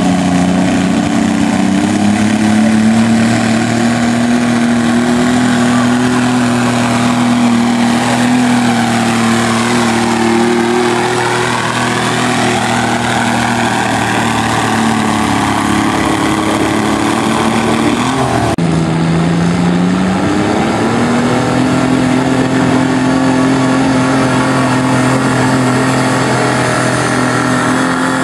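Diesel garden tractor engine running hard under load while pulling a weight-transfer sled. Its pitch climbs at the start, holds steady, then sags slightly. About 18 seconds in, the sound cuts to a second diesel garden tractor whose engine starts lower and revs up a few seconds later as it takes the sled.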